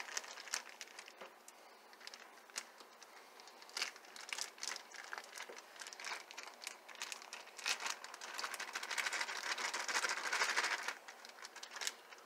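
Plastic ground-venison packaging crinkling and crackling as it is squeezed and handled to work the last meat out, in scattered crackles with a longer, louder spell of crinkling late on.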